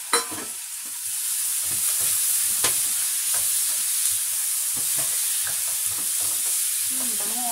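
Chicken wings frying in hot oil with garlic, onion and ginger in a nonstick frying pan: a steady sizzle that grows louder about a second in, with a spatula knocking and scraping against the pan as the wings are stirred.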